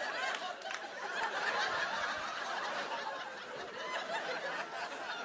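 Studio audience laughing together after a punchline. The laughter swells about a second in and slowly dies down.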